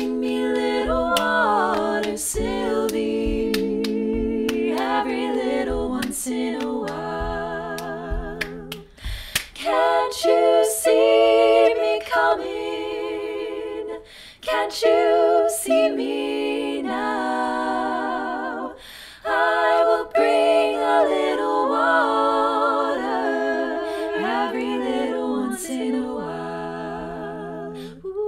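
Upper voices singing a cappella in several-part close harmony, laid over body percussion: claps, snaps and pats heard as sharp clicks through the singing, with brief breaks in the singing.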